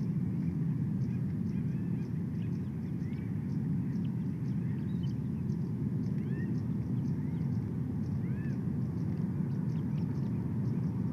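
Steady low outdoor rumble at the nest-cam microphone, with short high bird chirps scattered through it and faint rapid ticking higher up.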